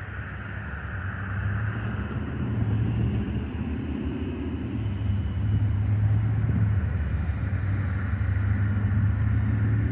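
GE AC44C6M diesel-electric freight locomotive running under power as the train departs, a low steady rumble. It grows louder about a second and a half in as the train draws nearer.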